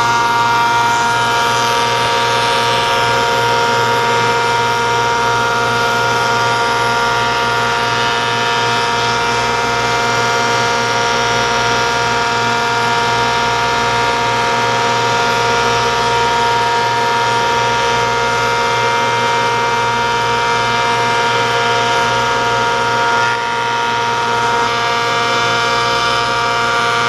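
Planer-moulder running steadily with a constant motor hum, its moulding knives milling an elliptical profile along a shutter louver board as it feeds through.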